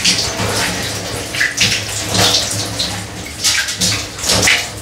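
Running tap water being splashed onto the face in repeated handfuls over a bathroom basin: a cold-water rinse after a wet shave.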